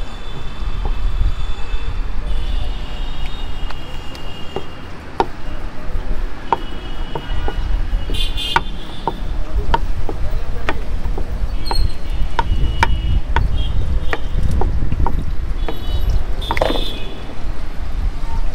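Steady roadside traffic rumble, with scattered sharp clicks and knocks from a rolling pin rolling out dough on a marble slab.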